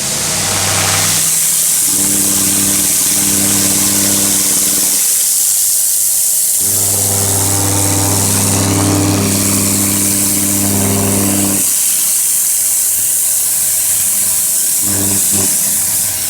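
Pressure washer running: a steady hiss of spray with a motor hum under it that drops away and returns a few times.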